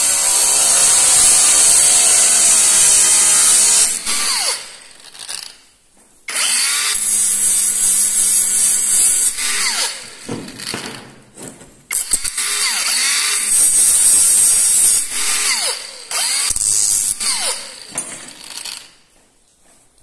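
Battery-powered power tool from a five-head cordless set, run hard in about four bursts with its motor pitch falling and rising between them.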